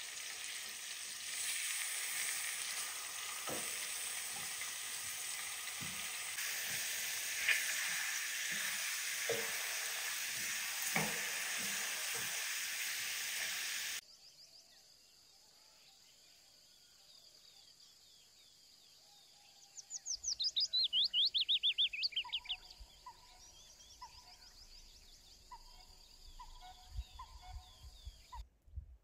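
Chicken pieces sizzling as they fry in a pan, with a few knocks of wooden spatulas turning them. About halfway through the frying cuts off, and later a bird sings a quick falling trill followed by short repeated notes.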